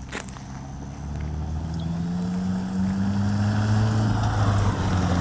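2018 Subaru WRX's turbocharged flat-four engine under acceleration with its exhaust valve shut, the revs and loudness climbing steadily for about four seconds and then dropping back. A couple of light clicks come right at the start.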